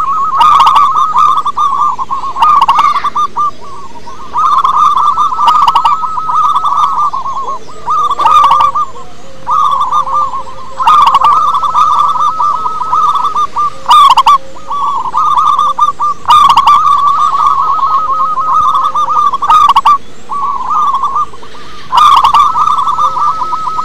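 Zebra dove (perkutut) cooing loudly: phrase after phrase of quick, rippling notes, each lasting a second or two, with only short pauses between them.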